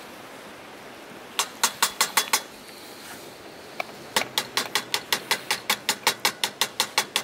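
Light metal knocks on a samovar's metal tap, struck to free a stuck tap that will not open: a quick run of five, then after a pause a steady run of about four knocks a second.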